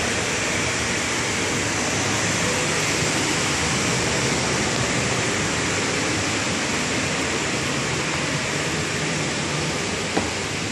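Steady rushing noise of air-moving machinery running, with one faint tap near the end.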